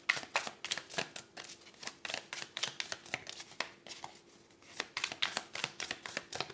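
A deck of tarot cards being shuffled by hand: a quick, irregular run of crisp card flicks and taps, easing off briefly a little past halfway before starting again.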